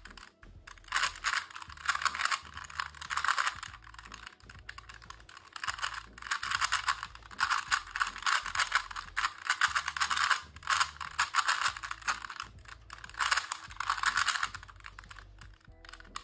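Plastic clicking and clacking of a Rubik's brand 3x3 cube being turned fast in a speedsolve. The turning comes in quick bursts of about a second or two, with short pauses between them. The cube turns clunky.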